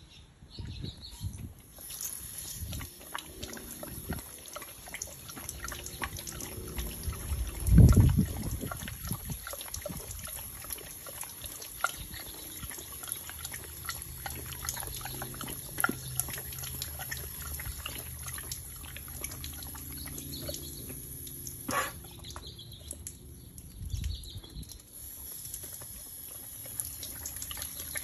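Doberman puppy lapping and slurping at the water spraying from a garden hose nozzle: a steady hiss of running water broken by many small wet clicks. A loud low thump comes about eight seconds in.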